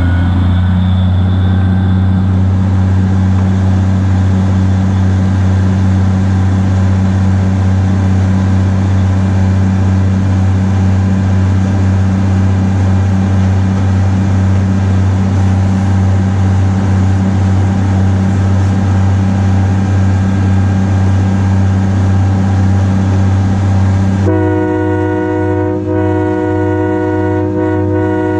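1943 GE 80-ton diesel-electric switcher locomotive running along the track, its diesel engine giving a steady deep drone heard from on board; the engine note drops at the start. About 24 seconds in, the locomotive's horn starts a long, steady blast.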